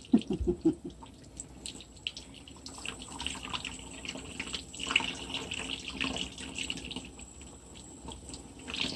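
Water running from a tap and splashing as a puppy is bathed, with a few short knocks near the start.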